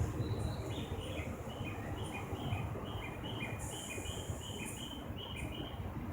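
Birdsong: short two-note chirps, a higher note then a lower one, repeated evenly about twice a second over a steady low hum.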